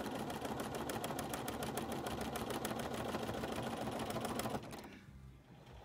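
Bernina sewing machine stitching a narrow zigzag satin fill, the needle ticking rapidly and evenly, then stopping about four and a half seconds in.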